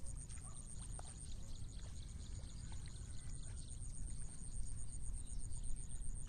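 Insects calling steadily in the grass: one continuous high buzz and a second high call pulsing about six times a second, over a low rumble.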